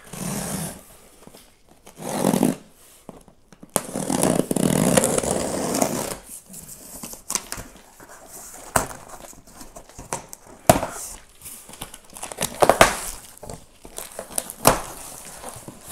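A knife slicing through the packing tape along the top of a large cardboard box, in three strokes over the first six seconds with the last one long, then the cardboard flaps being worked loose with scattered sharp clicks and knocks.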